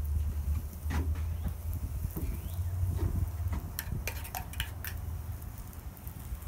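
A metal spoon clinking and scraping against a ceramic bowl as tomato sauce is spooned onto chicken cutlets on a griddle. The clicks cluster about four seconds in, over a steady low rumble.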